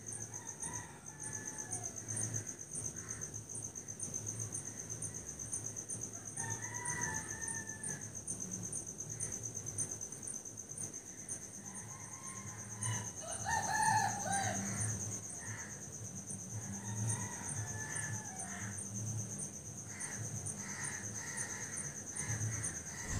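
Dawn rural ambience: insects chirping in a steady, fast pulsing trill, with scattered bird calls and a rooster crowing once about halfway through, the loudest sound.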